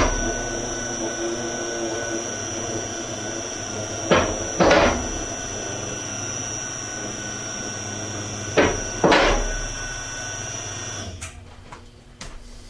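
A motorcycle lift table being lowered: a steady running noise until about 11 seconds in, broken by two pairs of loud clunks, one pair about 4 seconds in and another about 9 seconds in.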